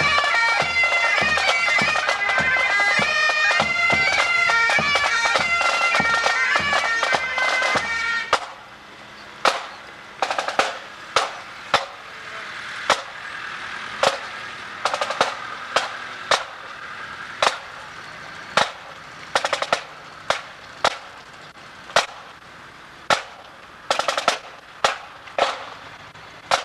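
Highland pipe band playing a tune: bagpipe chanters over their drones, with marching drums. About eight seconds in the pipes stop suddenly. From then on there are only sharp, uneven drum taps, about one a second and some in quick pairs, marking the march.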